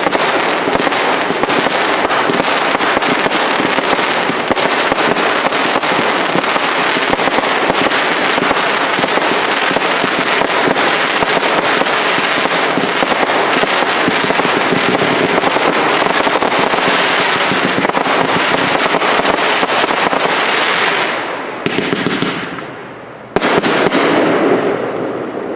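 Cake fireworks firing a dense, continuous barrage of launches and crackling bursts. The barrage thins out about 21 seconds in. A new loud volley starts suddenly about two seconds later and fades.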